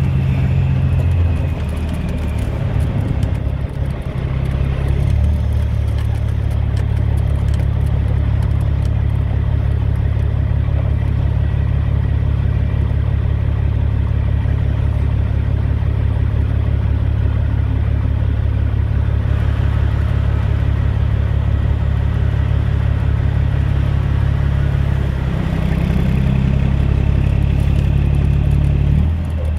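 Semi truck's diesel engine heard from inside the cab, running with a steady deep drone while the truck creeps along at low speed. The engine note changes pitch a few seconds in and again near the end.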